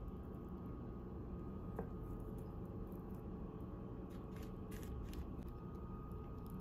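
Faint room tone with a steady low hum, broken by a few light clicks and taps of food and plates being handled: one about two seconds in, and a short cluster about four to five seconds in.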